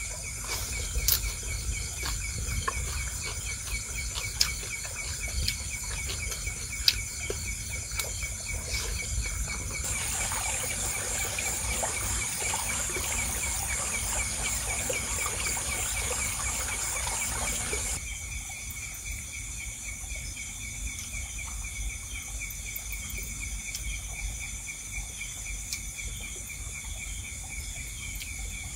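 Insects chirping, with a steady, fast-pulsing trill and higher insect buzzing throughout. A wider hiss joins in for about eight seconds in the middle and cuts off suddenly. A few sharp clicks sound in the first several seconds.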